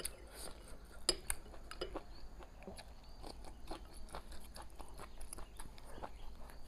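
Wooden chopsticks clicking and tapping against a porcelain rice bowl, with chewing of rice and fried green chillies with fermented black beans: a scattering of small sharp clicks.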